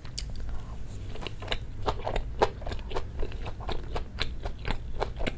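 Close-miked chewing of a bite of Korean pan-fried pancake (jeon) topped with stir-fried kimchi, with many short, sharp mouth clicks at an irregular pace, several a second.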